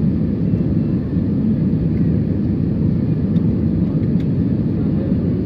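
Steady low rumble of an airliner heard from inside the passenger cabin: engine and airflow noise.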